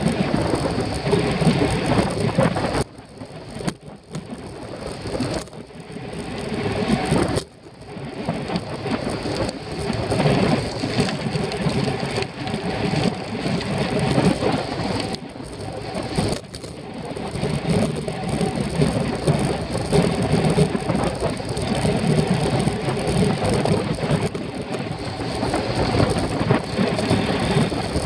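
Wind buffeting a bicycle-mounted camera's microphone at race speed, mixed with tyre noise and rattling from the bike on the road. The noise drops away briefly twice, about three and seven seconds in.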